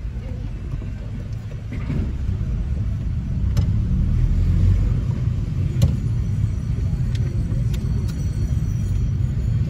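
Low, steady rumble of a car's engine and tyres heard from inside the cabin while driving slowly, getting louder about two seconds in, with a few light clicks.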